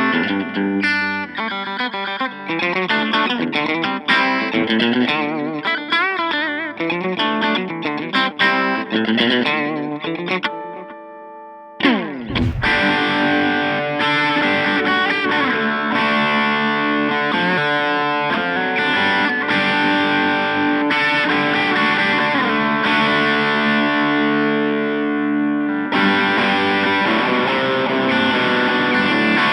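Solar A1.6D electric guitar played through a Boss Katana Mini 7-watt practice amp, picked notes in a lighter tone for about ten seconds that fade away. Around twelve seconds in a quick sliding sweep leads into a heavier, distorted passage that runs on steadily.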